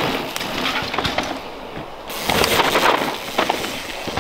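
Mountain bike tyres crunching and skidding over loose, dry trail dirt as the bike passes close by, with crackles and rattles. It comes in two bouts, a short one at the start and a longer one about two seconds in.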